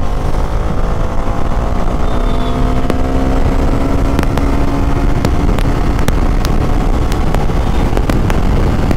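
Bajaj Dominar 400's 373 cc single-cylinder engine pulling at wide-open throttle in fourth gear. Its pitch climbs slowly for about five seconds and then holds level, at what the rider feels is an RPM it will not rev past. Steady wind rush underneath.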